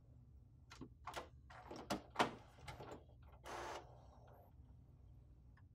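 HP DeskJet 3634 inkjet printer's mechanism at work as the print carriage travels to the ink cartridge access position: a series of clicks and knocks, the loudest about two seconds in, then a brief whir about three and a half seconds in.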